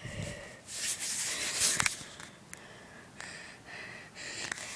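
Rubbing and rustling handling noise on a handheld phone's microphone as the phone is turned about, in uneven bursts with a few sharp clicks.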